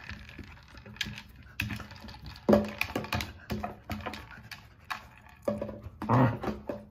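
Dry pellets rattling and clicking inside a hard plastic blender bottle as a dog paws and noses it along the carpet, with irregular knocks as the bottle tips and rolls. The loudest knock comes about two and a half seconds in.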